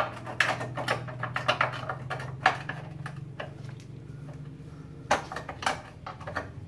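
Ratchet wrench clicking in short runs on a 13 mm bolt of the battery hold-down bracket, with small metal clinks. The clicks come thickly for about three seconds, pause, then come again about five seconds in, over a steady low hum.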